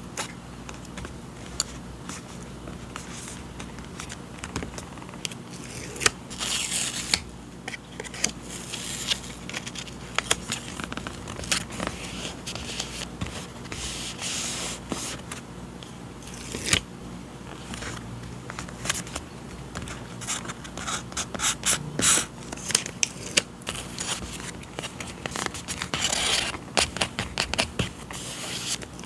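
Paper and packaging being handled: irregular crinkles, scrapes and sharp clicks, with a few longer rustling passes.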